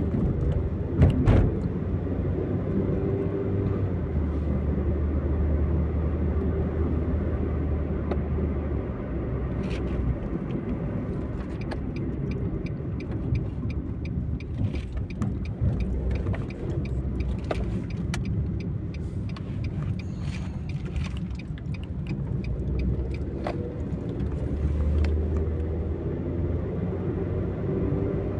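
Steady low rumble of road and engine noise inside a moving car's cabin. A brief knock comes about a second in, and a few faint light clicks follow later.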